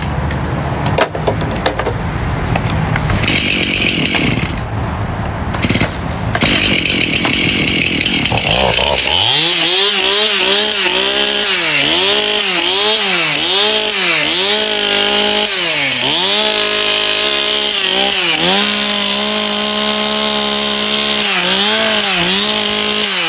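Stihl gas chainsaw running. For about the first nine seconds the sound is ragged and noisy; after that a steady high engine note sets in, and its pitch repeatedly dips and comes back up, about eight times.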